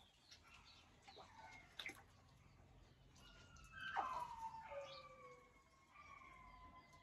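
Faint chorus of many hatchling crocodiles chirping: short overlapping calls that fall in pitch, with a louder cluster about four seconds in.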